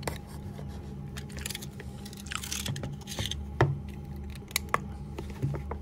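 Utility knife blade scraping and clicking against a stiff clear plastic packaging tube, with a longer scratching stroke about two seconds in and scattered sharp ticks after it. The plastic is very hard to cut.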